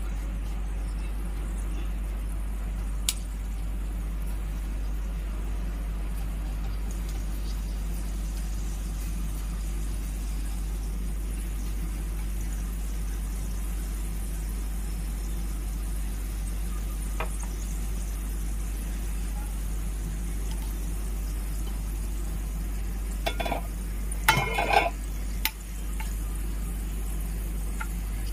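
Fenugreek seeds frying in hot oil in a pan, a faint steady sizzle over a constant low hum. A couple of single clicks, and a short clatter of knocks about 24 seconds in.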